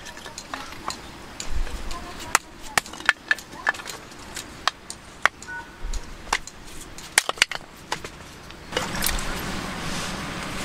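Hatchet blade striking and splitting small pieces of firewood on a log chopping block: a string of sharp, irregular knocks and wood cracks. Near the end the knocks give way to a steady rushing noise.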